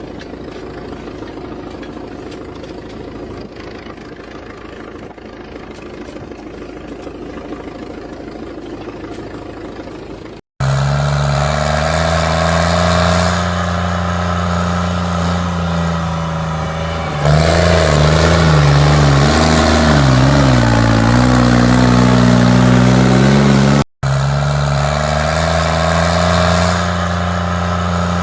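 Diesel engine of a backhoe loader running, quieter at first and then loud and close after about ten seconds; its pitch dips and climbs again midway as it works under load.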